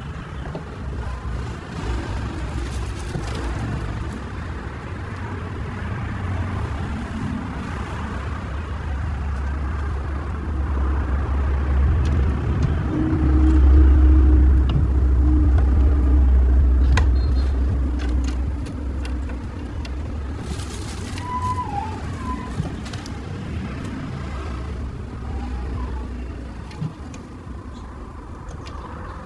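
Low rumbling vehicle noise that swells to its loudest about halfway through and then fades again.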